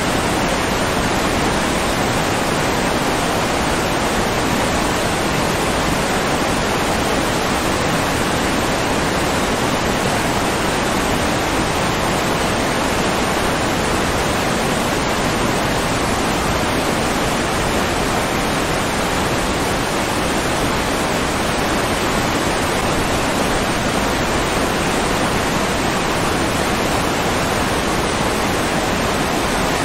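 Rushing water, a steady, even hiss like a stream or waterfall, unchanging throughout.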